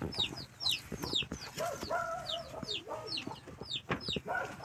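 Chickens: chicks peeping over and over in short, high, falling notes about twice a second, with a lower clucking call about two seconds in.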